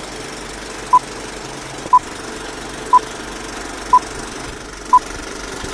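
Old-film countdown leader sound effect: a film projector's steady rattle and hiss, with a short beep once a second, five times.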